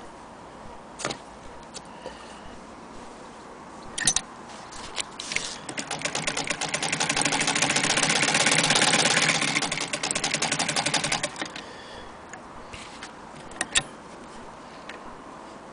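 Hand-crank Singer Model 66K sewing machine stitching: a fast, even clatter of needle-bar clicks builds up about five seconds in, holds for several seconds, then tapers off. A few single knocks come before and after it.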